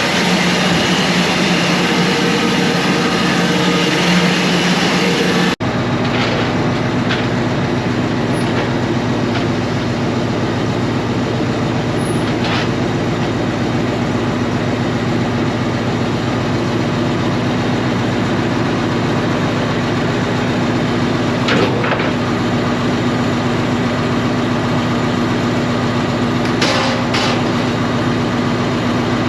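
Grain dryer's burner and fan running steadily just after lighting, a loud continuous mechanical drone and hum. The sound changes abruptly about five and a half seconds in, from a rushing roar to a steadier hum.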